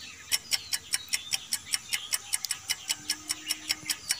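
Clock-ticking sound effect of a quiz countdown timer: fast, even ticks about five a second, starting about a third of a second in.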